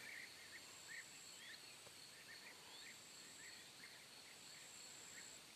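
Faint outdoor quiet: a steady high insect trill with short chirps repeating irregularly two or three times a second.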